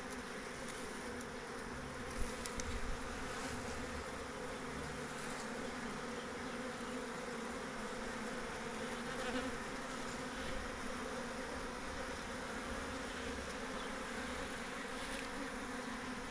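A honeybee swarm buzzing, the steady hum of many bees flying around the hive as they orientate to it. There is a light knock about two seconds in.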